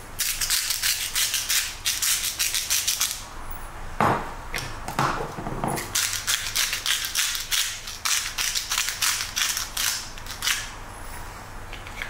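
A salt shaker shaken in quick rattling strokes for about three seconds, then a sharp knock about four seconds in, then a hand-twisted pepper grinder grinding peppercorns in a run of rapid rattling strokes lasting about four seconds.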